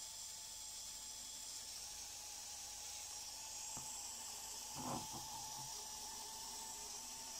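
Faint steady hiss with a faint steady tone under it, broken by a small click a little before four seconds and a short soft knock about five seconds in from handling the Aiwa HS-F7 cassette player.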